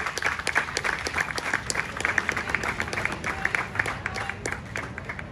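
Audience applauding with fast, irregular clapping that dies away near the end.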